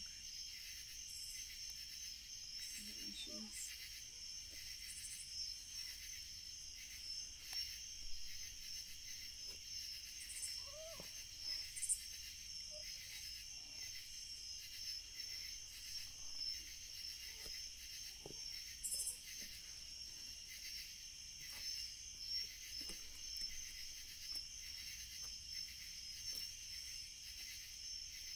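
Steady, shrill chorus of night insects, crickets among them, with scattered soft pops and crackles from a small wood campfire.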